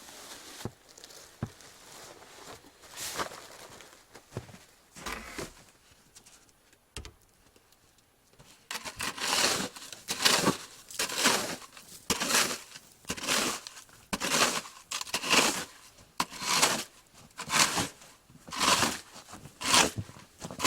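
Footsteps crunching in deep snow, at a steady walking pace of about one step a second from about nine seconds in; before that, scattered quieter crunches and rustles.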